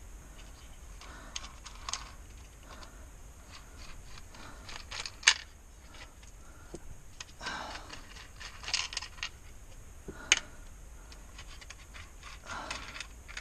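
Scattered clicks, light rattles and scrapes of car parts being handled during interior disassembly, with two sharper knocks about five and ten seconds in.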